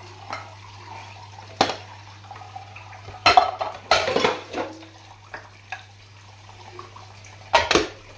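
Dishes clattering in a stainless-steel sink as ceramic bowls and a wok are handled and scrubbed with a soapy sponge, over a tap running faintly. One knock comes about a second and a half in, a burst of clattering around three to four and a half seconds, and another clatter near the end.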